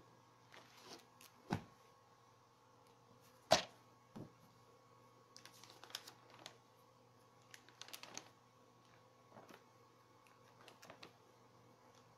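Pages of a Panini sticker album being opened and turned by hand: scattered short rustles and flaps of paper, the sharpest about three and a half seconds in, over a faint steady hum.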